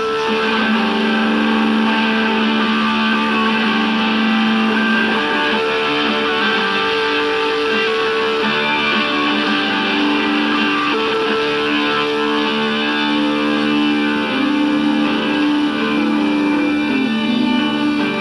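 Guitar-led instrumental passage of the song, with long sustained notes and no singing.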